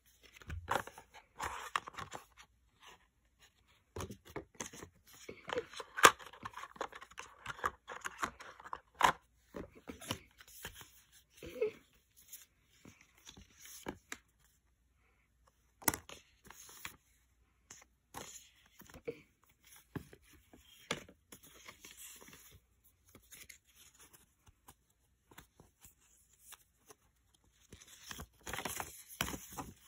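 Cardboard smartphone boxes and their paper and plastic inserts handled by hand: scattered rustling, scraping and light clicks and taps. The handling goes quiet for a couple of seconds a little before halfway, then resumes with one sharp click, and grows busier near the end.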